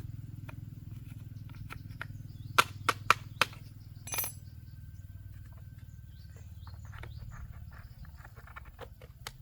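A low steady hum, with a quick run of four sharp knocks about two and a half seconds in and a short ringing clink about a second later, typical of hand tools being worked on a bench.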